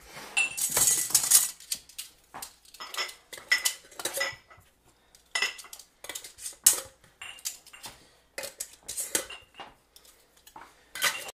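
Glass canning jars clinking and clanking against each other and against metal as they are handled and loaded into a pressure canner: a quick, irregular run of short knocks with brief ringing.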